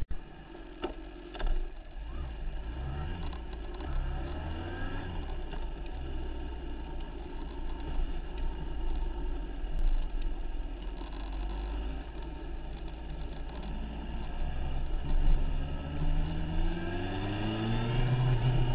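A motor vehicle's engine running, picked up by a handlebar-mounted camera, with a couple of sharp knocks about a second in. Near the end the engine revs up, its pitch rising again and again as it grows louder.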